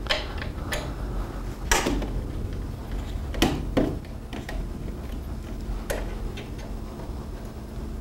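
A hand wrench tightening the bracket bolts on a steel roof rack: a handful of sharp, irregularly spaced clicks and clinks, over a faint steady low hum.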